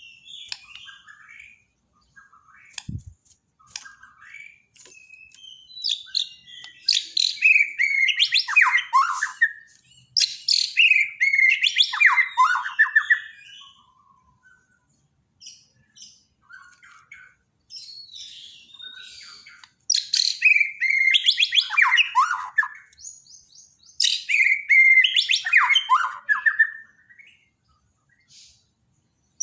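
Songbird song, of the kind played to stir a white-rumped shama that has stopped singing: loud, varied phrases of fast downward sweeps in four main bouts, with softer chirps in between. A single short knock about three seconds in.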